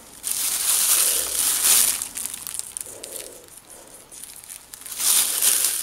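Thin plastic bag crinkling as it is handled, in two bouts: one from just after the start to about two seconds in, and another about five seconds in.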